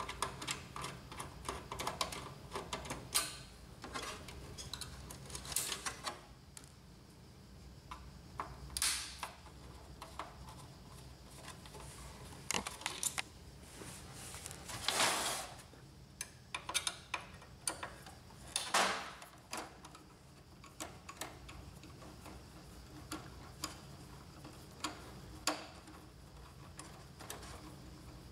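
Small clicks, ticks and scrapes of a screwdriver turning out screws from the metal and plastic chassis of an inkjet printer, with a few louder scrapes of parts being handled.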